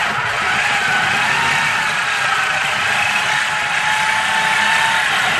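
Handheld electric power tool running continuously: a steady motor whine that wavers slightly in pitch over loud hiss, starting abruptly, used on a stuck axle bolt that is not turning.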